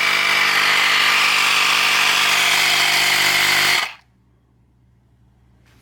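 Battery-powered handheld mini tire inflator's compressor running steadily with a buzzing hum and rushing air, blowing freely from the hose with nothing attached, then switched off, cutting out suddenly a little under four seconds in.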